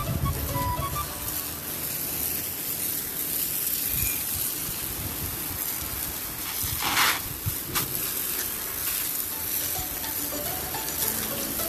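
Steady hiss of water splashing on wet floor tiles as the floor is washed, with a brief louder hiss about seven seconds in.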